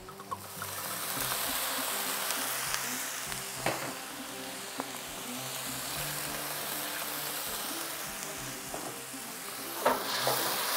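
Vegetables sizzling in a hot cast-iron wok as balsamic vinegar and soy sauce are poured in to deglaze; the sizzle swells about half a second in and then holds steady. Near the end a wooden spatula stirs and knocks against the wok.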